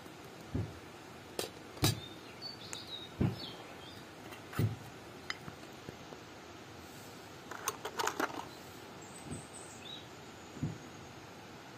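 Scattered dull knocks as a small bowl is tapped out over a bowl of flour, and a quick run of clinks about eight seconds in from a spoon in a small glass jar. A few birds chirp faintly in the background.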